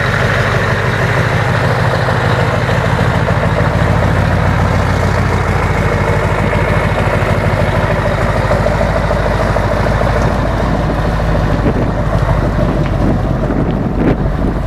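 Scania 460 V8 diesel truck engine idling steadily through a loud exhaust pipe, at an even, deep pitch with no revving. A few short knocks sound near the end.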